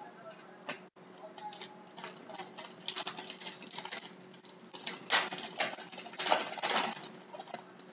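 Hockey trading cards and a card-pack wrapper being handled: a run of short rustles and crinkles as a pack is opened and its cards are shuffled, loudest about five to seven seconds in.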